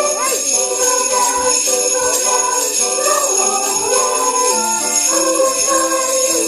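Sleigh bells shaken continuously by a group of children over music with a moving melody.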